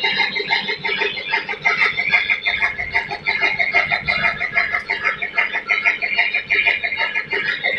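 Mini groundnut oil expeller running, its screw press and gearing making a fast, steady, chattering rattle.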